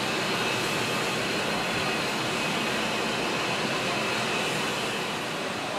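Class 47 diesel-electric locomotive idling, its twelve-cylinder Sulzer engine giving a steady hum with a high whine over it.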